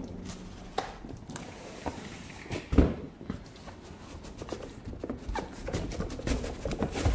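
Large corrugated cardboard shipping box being handled and opened by hand: cardboard rubbing and scraping with scattered knocks, the loudest about three seconds in and again just before the end.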